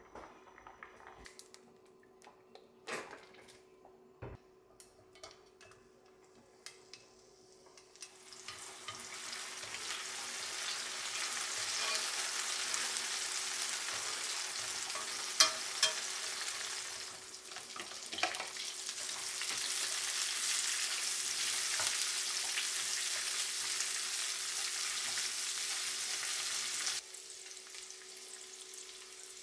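Sliced garlic and green onion sizzling in hot oil in a frying pan as they are stirred with wooden chopsticks. The sizzle comes in about eight seconds in, dips briefly a little past the middle with a sharp click, and cuts off suddenly near the end. Before it there are only a few faint clicks over a low steady hum.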